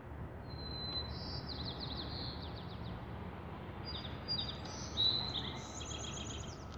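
A small songbird singing two phrases of high, rapid trills, the second phrase higher and more varied, over a steady low rumble.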